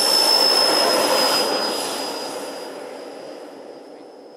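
Twin 120 mm Schübeler electric ducted fans of a large RC Airbus A350 model running at high power on the takeoff roll, a rushing roar with a high steady whine. It is loudest about a second in, then fades and drops slightly in pitch as the model rolls away.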